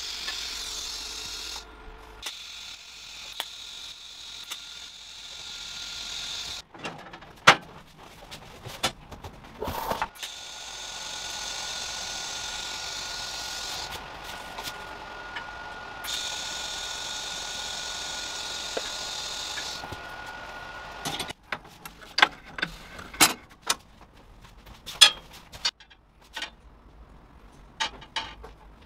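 Welding arc on stainless steel tubing: a steady buzzing hiss with a thin high whine, heard in two runs, the second lasting about ten seconds. In the last several seconds come scattered sharp metallic taps and clicks as the steel tubes are handled.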